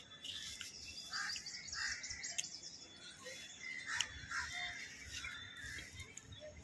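Small birds chirping and calling in quick, scattered notes, with a sharp click about four seconds in.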